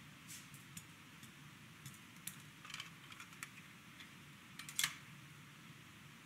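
Scattered light clicks and taps of kitchen utensils and metal dishes being handled on a steel counter, with a cluster between about two and three and a half seconds and the loudest, a pair of sharp clicks, near five seconds in. A steady low hum runs underneath.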